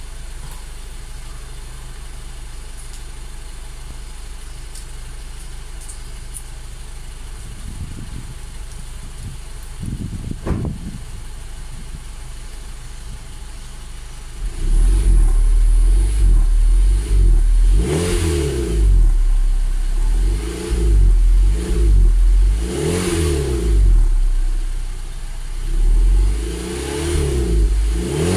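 Exhaust of a Honda Stream RN6's 1.8-litre four-cylinder engine through a Mugen S Flow muffler. It idles steadily with a couple of light blips, then from about halfway through is revved repeatedly, about five rev-ups that rise and fall back to idle.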